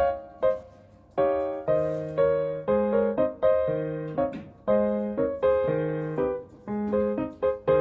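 Solo piano music: a melody over chords, each note struck and then fading.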